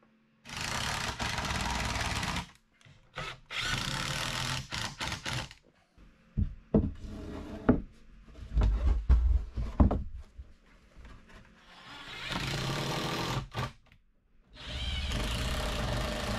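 Cordless drill driving screws into wooden boards in four runs of about two seconds each. Between them, wooden knocks and thumps from the boards being handled.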